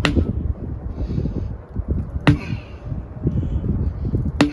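A sledgehammer striking a tire three times, about every two seconds, each blow a sharp smack with a brief low ring. Wind buffets the microphone throughout.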